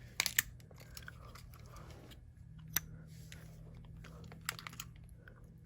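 Small sharp clicks and taps from handling a digital camera and fitting a mini USB cable plug into it. There are a few near the start, one about halfway and a few more near the end, over a low steady hum.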